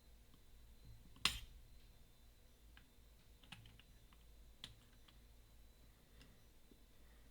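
Disc detainer pick working inside a Bell bike U-lock: scattered small clicks as the discs are turned, with one sharper, louder click about a second in.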